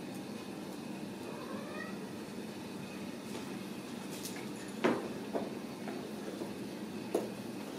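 Ragdoll kitten giving a faint, rising meow early on, with scattered sharp clicks and taps from the kittens' play on the tile floor, the loudest about five seconds in.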